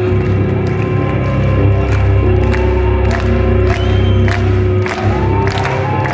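Progressive metal band playing live: loud electric guitar, keyboards, bass and drums, heard from the audience, with the crowd cheering over the music.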